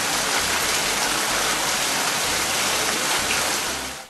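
Heavy rain pouring down steadily in a dense, even hiss, fading out near the end.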